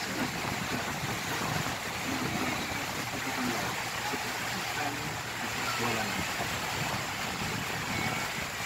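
Steady rush of water and motor noise aboard a moving open river cruise boat, with passengers' voices faint underneath.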